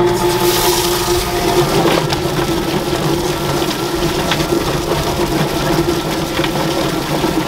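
Tub-style chicken plucker running: its electric motor spins the bottom plate with a steady hum while scalded chickens tumble and slap against the rubber plucking fingers. A garden hose sprays water into the drum to wash out the loosened feathers.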